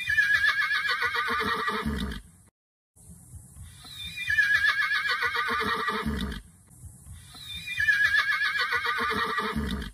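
Horse whinnying three times, each call a quavering neigh that falls in pitch over about two seconds and ends low, with a short pause between calls.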